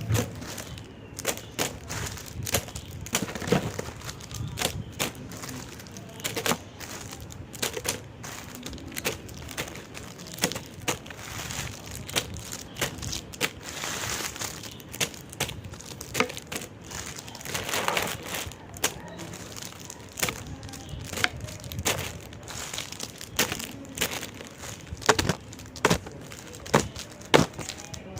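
Candy being handled: irregular crinkling and crackling, broken by many sharp clicks at an uneven pace.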